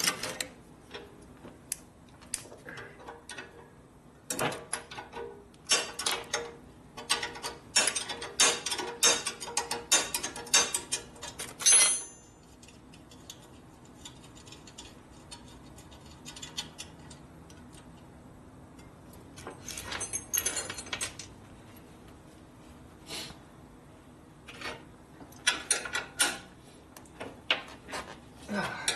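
Hand tools working on metal motorcycle hardware: runs of quick, ratchet-like clicks and clinks of bolts and parts. The first run ends in a louder clank about twelve seconds in, followed by a quiet stretch and two shorter runs of clicking later.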